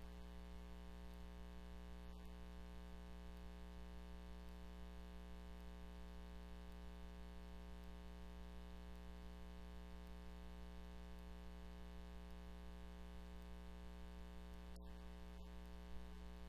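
Steady low electrical hum with a stack of even overtones over faint hiss, with one small click near the end.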